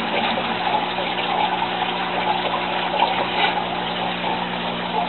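Water from an aquaponics system's PVC return line pouring steadily back into the IBC tank and splashing on the water surface, over a steady low hum. The return tube ends above the water level, which makes the splashing noise that the owner plans to quiet by lengthening the tubes.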